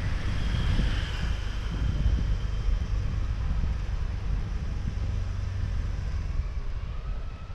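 Outdoor street noise: a steady low rumble of wind buffeting the microphone, mixed with motorbike and car traffic.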